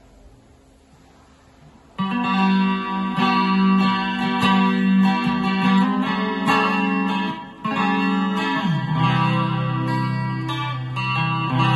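Electric guitar played through a Fender Mustang I modeling amp, coming in about two seconds in after a short quiet stretch: a run of sustained, ringing notes, with a note sliding down about two-thirds of the way through.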